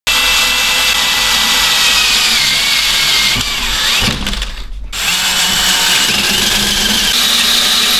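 Cordless drill driving a hole saw through a metal panel, a loud grinding cut with a high, wavering whine. The cut pauses briefly about four seconds in, then starts again.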